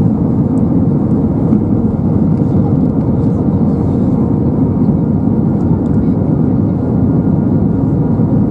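Steady in-cabin roar of an Airbus A320-232 in flight, made by its IAE V2500 engines and the airflow over the fuselage. The noise is a deep, even rumble with a faint steady hum in it.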